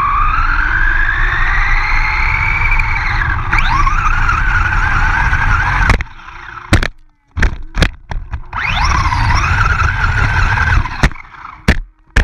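Redcat 1/10-scale RC monster truck running flat out on grass, its motor and gears whining higher as it speeds up, over a rush of tyre and wind noise. The drive cuts off about six seconds in. Sharp knocks follow as the truck lands and tumbles, then a second burst of whining acceleration ends in more knocks as it rolls over near the end.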